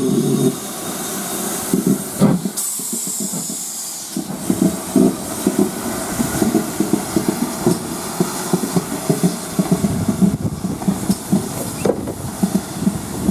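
GWR Castle class steam locomotive No. 4079 "Pendennis Castle" working, with a loud hiss of steam. From about four seconds in, quick rhythmic beats run on under the hiss.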